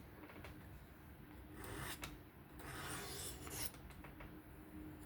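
Sharpening stone on a fixed-angle sharpener scraping lightly along an S30V steel knife edge. There are two main strokes, about two seconds in and again around three seconds in. These are light forward sweeps to knock off the burr.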